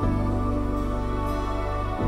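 Background music of steady held chords.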